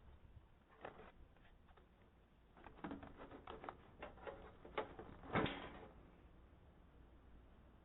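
Faint, irregular clicks and knocks, heard through a doorbell camera's microphone: one about a second in, a quick run of them from about three to five seconds in, and the loudest single knock just after five seconds.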